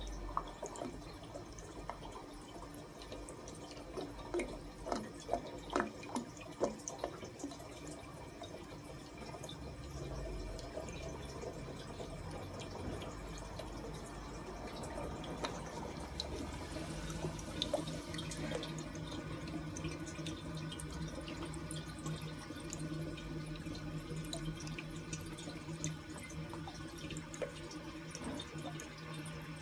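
Toilet after a flush: irregular gurgling, glugging drips over the first several seconds, then steady running water as the cistern refills, with a low hum joining about halfway. The gurgling is the sign of a clogged drain pipe that cannot vent air.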